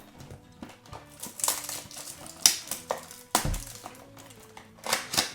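Cardboard surprise box and its wrapping being opened by hand: a string of sharp rustles, rips and clicks, loudest about two and a half seconds in, over soft background music.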